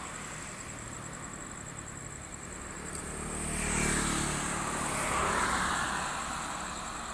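RM-74 ballast cleaning machine travelling light on the rails under its own diesel power, its engine and running noise swelling as it draws near, loudest from about four seconds in.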